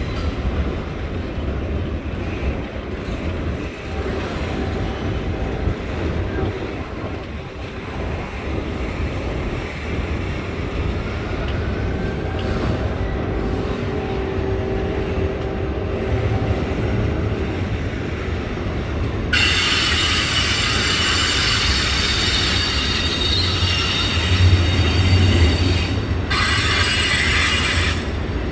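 Freight cars of a CSX mixed freight train rolling past with a steady rumble of wheels on rail. About two-thirds of the way through, a loud, high wheel squeal starts suddenly; it breaks off briefly and comes back near the end.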